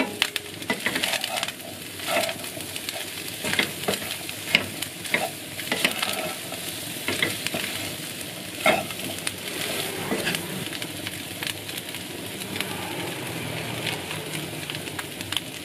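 Shiitake mushrooms and dried shrimp sizzling in a frying pan while a wooden spatula stirs them, with frequent short scrapes and knocks of the spatula against the pan.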